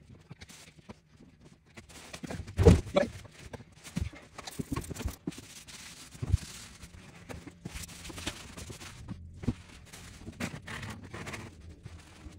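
Irregular scraping, knocking and rustling as old wax is scraped and wiped off a toilet's closet flange and the tile floor around it, with a plastic trash bag being handled. One loud knock about two and a half seconds in.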